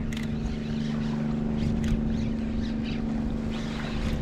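A boat motor running with a steady hum, with a few faint clicks over it.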